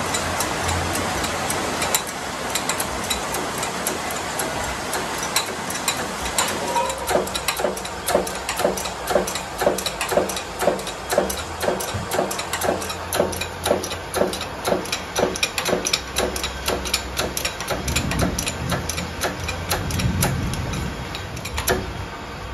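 Hand-pumped hydraulic shop press being worked to press the parts of a crankshaft pulley together. Its pump gives a run of even clicks, about two to three a second, through the middle of the stretch, after a steady hiss at the start.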